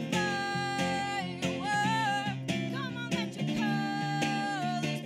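A woman singing over a strummed acoustic guitar, holding two long notes, one at the start and one in the second half, with a shorter phrase between them.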